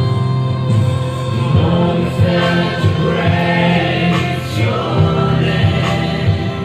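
Mixed choir of women's and men's voices singing together, several parts sounding at once.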